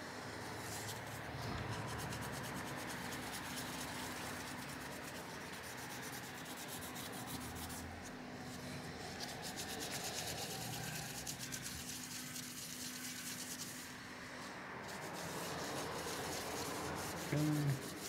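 Alcohol-dampened tissue paper rubbing and scrubbing across a laptop CPU die, wiping off old thermal paste in a continuous rasping friction sound. A brief low hum comes in near the end.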